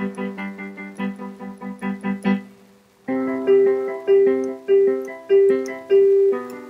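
Electric keyboard played with a piano sound: a quick run of notes at about four a second, a brief pause about two and a half seconds in, then a louder phrase with one note struck again and again, about every 0.6 s.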